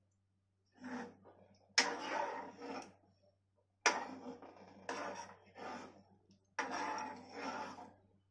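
A steel ladle stirring a thin potato curry in a metal kadhai, knocking and scraping against the pan in about five strokes, each about a second long with short pauses between.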